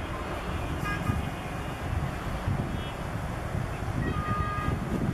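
Steady low outdoor rumble, with a few brief high tooting tones about a second in and again around four seconds in.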